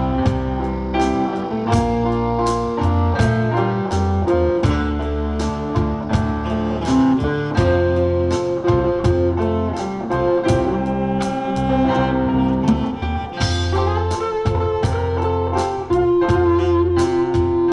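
Live instrumental combo-band music with no singing: drums keep a steady beat under bass, with guitar, keyboard and saxophone carrying the tune.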